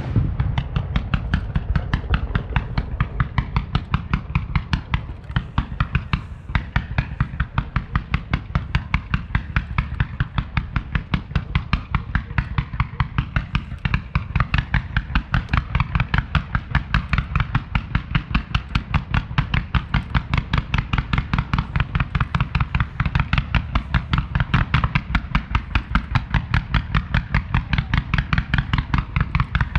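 Ground fireworks: a long, unbroken string of rapid firecracker bangs, about four to five a second, keeping an even pace throughout.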